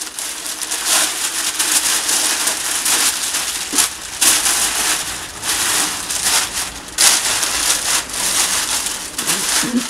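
Sheets of packing paper rustling and crumpling as they are handled and pulled about, in loud irregular surges of crackling.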